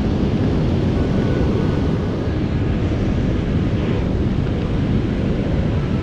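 Fast river rapids rushing steadily, a deep, continuous roar of water without let-up.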